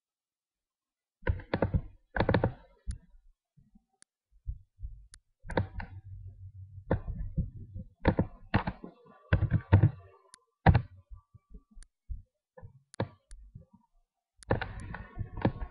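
Computer keyboard and mouse in use: irregular clicks and knocks in clusters with short pauses, starting about a second in, some keystrokes with a dull thud under them.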